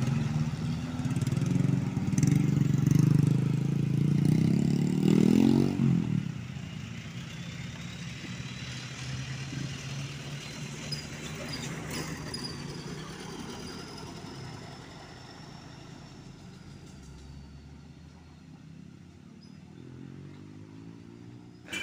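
Large cargo truck's diesel engine running loud as it pulls past close by, the revs climbing about five seconds in before the sound drops away. After that, quieter passing traffic, with another engine revving up near the end.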